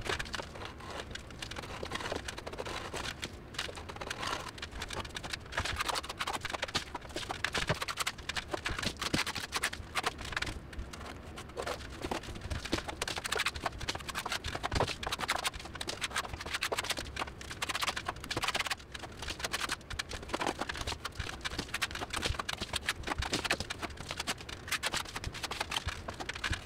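Steel trowel scraping and tapping against the wall as lime render is pressed on and spread, a dense run of irregular scrapes and small clicks.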